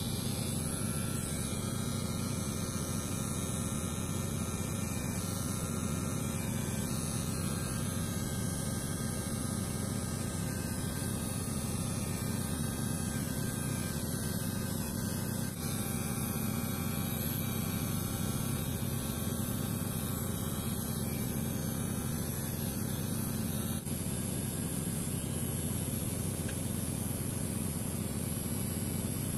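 Cordless electric hair trimmer running with a steady, unbroken buzz as it is drawn over the scalp, cutting short hair.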